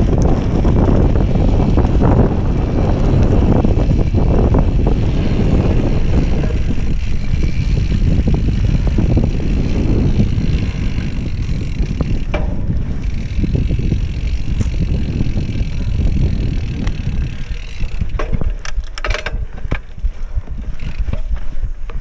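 Wind buffeting the microphone of an action camera on an Oggi Agile Pro mountain bike riding fast down a dirt forest trail, with tyre noise and bike rattle underneath. The rumble eases a little in the last few seconds, where a few sharp knocks come close together.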